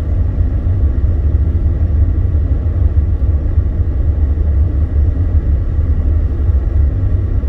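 Steady low drone of a car driving on a snow-covered, icy road, engine and tyre noise heard from inside the cabin.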